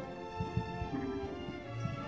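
Orchestral background music with sustained notes. Underneath it come dull, irregular hoofbeats of a horse cantering on arena sand.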